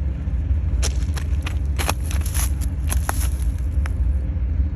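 A steady low rumble, with a run of sharp clicks and rattles from about one second in until near the end as the phone is moved low over the trackside ballast stones.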